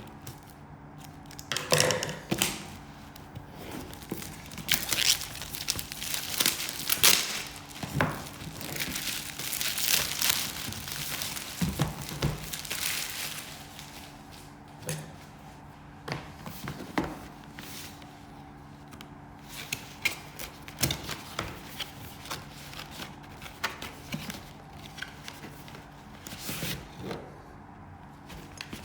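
Packaging being torn open and crumpled by hand: irregular crinkling rustles and sharp clicks, heaviest in the first half and thinning out toward the end, over a faint steady low hum.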